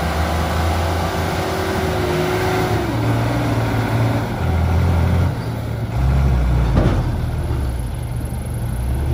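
Nissan Diesel dump truck's diesel engine running hard under load as the bogged truck tries to pull out of soft dirt, its note rising and falling, dropping in pitch about three seconds in. A brief sharp noise about seven seconds in.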